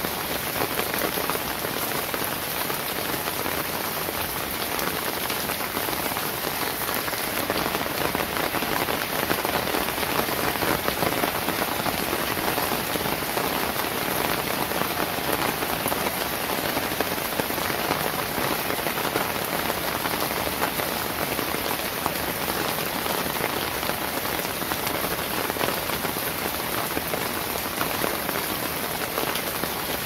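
Steady rain falling, an even, unbroken wash of drops with no thunder.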